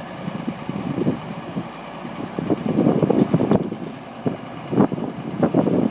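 Komatsu PC220LC-3 excavator's diesel engine running unevenly, with a few sharp knocks in the second half.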